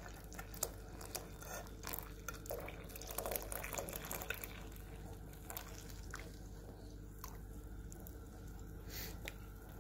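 Brewed Kashmiri tea being poured through a steel tea strainer into a pan of milk, trickling and dripping faintly.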